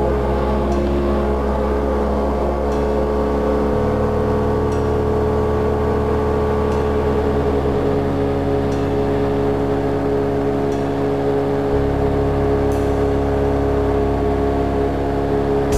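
Background music: slow sustained synthesizer chords over a bass that moves to a new note about every four seconds, with a soft tick about every two seconds.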